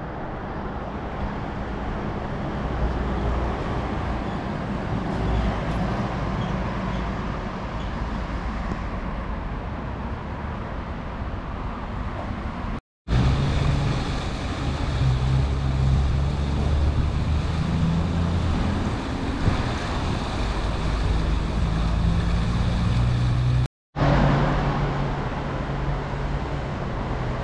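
Road traffic on a town main street, with cars passing in a steady noise and low rumble. The sound cuts out twice for a moment, about 13 and 24 seconds in. The middle stretch between the cuts is louder and heavier.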